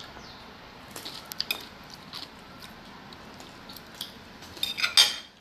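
A metal spoon clicking and clinking against a cup and other tableware as someone eats, with scattered light taps and a louder clatter near the end.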